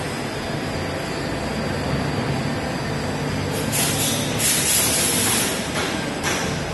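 Steady low hum of running workshop machinery, with a loud hiss starting about four seconds in and lasting about two seconds, and shorter hisses near the end.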